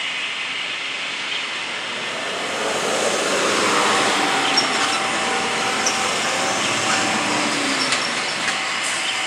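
AS350 B2 Écureuil helicopter's turboshaft engine and main rotor running on the ground after landing: a steady roar that swells a little a few seconds in, with a thin steady whine joining it about four seconds in.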